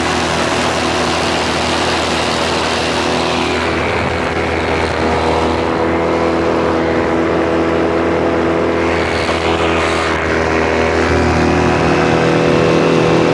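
Radio-controlled model airplane in flight, its motor and propeller running at a steady pitch, with a rushing noise over it that eases off in the middle.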